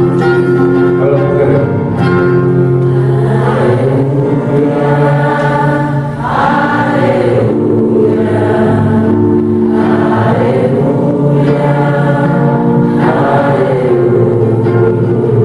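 Church music: voices singing a hymn over steady instrumental accompaniment with long held notes.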